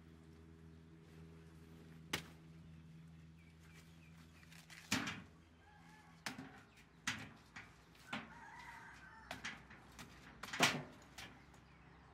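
Irregular knocks and thuds as banana trunk pieces are cut with a machete and handled, the loudest about ten and a half seconds in. Chickens cluck in the background, and a steady low hum stops about five seconds in.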